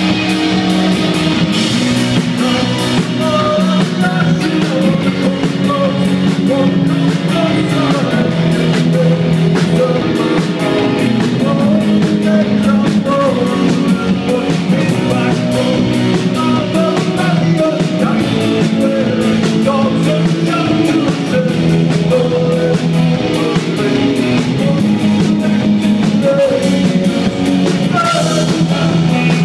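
Live rock band playing a song, with guitars and a drum kit at a steady loud level throughout.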